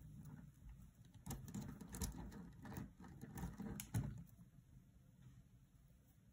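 Plastic beads of a beaded kandi cuff clicking and rattling faintly as hands handle it, with a flurry of small clicks in the middle that dies away near the end.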